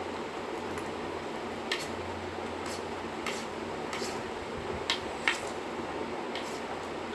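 Someone eating muri (puffed rice) with ghugni close to the microphone, with about seven short, sharp crunches and clicks at irregular moments over a steady low hum.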